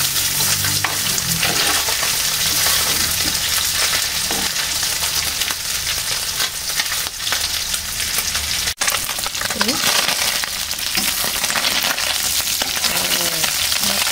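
Pieces of pindang tongkol (mackerel tuna) frying in hot oil in a frying pan, a steady sizzle, with a metal spatula turning the fish at the start. The sizzle cuts out for an instant about two-thirds of the way through.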